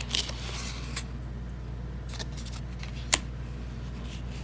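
Tarot cards being handled: a brief papery rustle as a card slides off the deck, then a faint tap and a sharper click about three seconds in as a card is set down, over a steady low hum.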